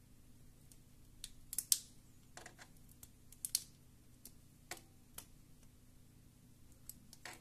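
Scattered small plastic clicks and taps from fingers handling and prying at a part of a Plantronics Voyager Edge Bluetooth headset during disassembly, a quick cluster about one and a half seconds in and a few single clicks later.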